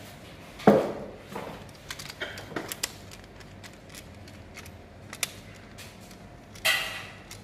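Handling noises at an electrical panel board: a sharp knock about a second in, scattered small clicks of wires and parts, and a short scraping rustle near the end.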